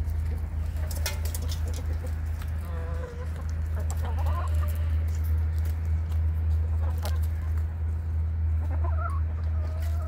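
Domestic hens clucking in short soft calls a few times, with scattered sharp clicks, over a steady low hum.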